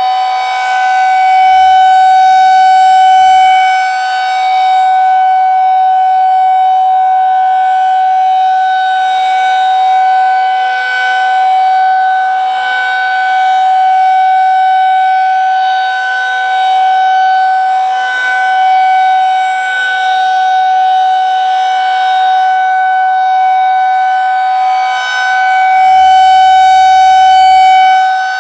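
Federal Signal 2001-SRNB rotating outdoor warning siren sounding its steady Alert signal on test: one constant high pitch that never rises or falls, growing louder and softer every few seconds as the rotating horn sweeps around.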